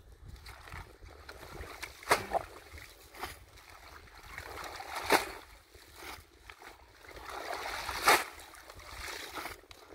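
Pond water splashing and dripping as clumps of water hyacinth, roots and mud are hauled out by hand, with three sharp splashes about three seconds apart.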